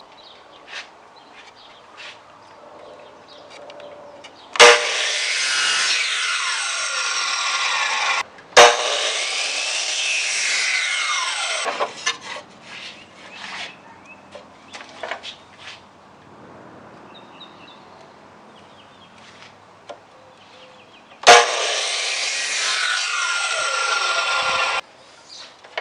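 A power saw cutting wood in three runs of a few seconds each, each starting suddenly with a sharp crack and stopping abruptly. Small knocks and clicks of wood being handled come between the cuts.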